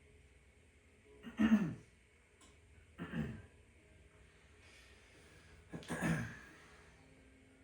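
A person clears their throat three times, each short sound dropping in pitch; the first is the loudest.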